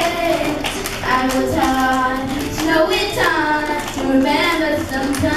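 Children singing a pop song through microphones, with a strummed small guitar accompanying.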